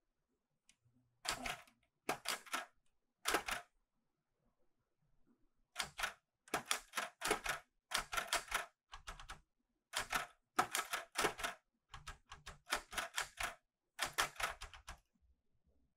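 Clover 810S manual typewriter being typed on, its keys striking in sharp clacks. The typing comes in a few short bursts with pauses, then runs more steadily from about six seconds in until it stops near the end.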